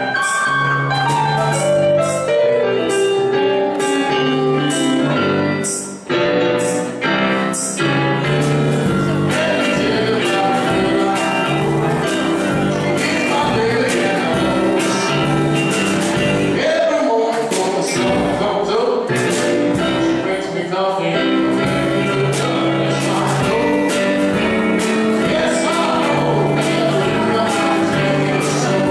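Live band playing: guitar, drum kit and electronic keyboard, with a man singing. The music breaks off briefly about six seconds in, and the singing comes in a couple of seconds later.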